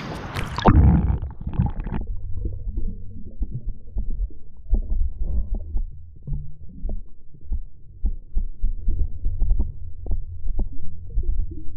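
Camera going into the water with a splash, then the muffled sound of the microphone underwater: a continuous low rumble with many small knocks as a hand handles the brown trout beneath the surface.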